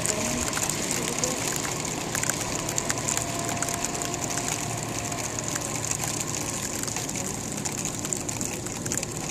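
Freezing rain coming down: a steady hiss with many small ticks.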